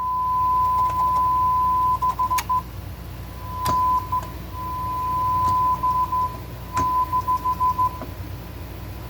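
A steady 1 kHz test tone passing through the second channel of a Drawmer 1960 tube compressor cuts in and out in quick stutters several times, with sharp crackling clicks, like static, as the sealed VCA block is touched: the channel's VCA is faulty. A low hum runs underneath.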